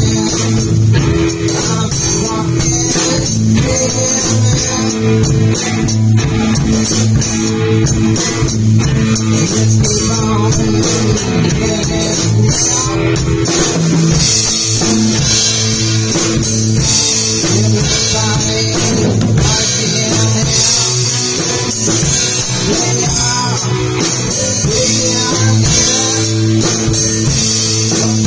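Live rock band playing an improvised warm-up jam: two electric guitars and a drum kit with cymbals, loud and continuous.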